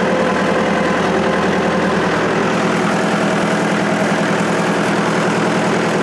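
Farm tractor engine running steadily as the tractor drives along, towing a trailer of logs.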